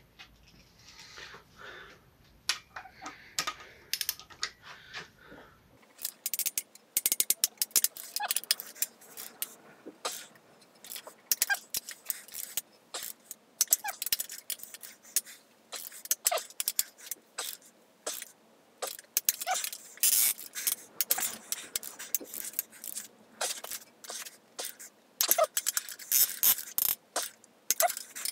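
A torque wrench ratcheting in short runs of sharp metallic clicks as cylinder head bolts are tightened down, here on a Kawasaki ZZR600 engine. The clicking is sparse for the first six seconds, then busy and irregular for the rest.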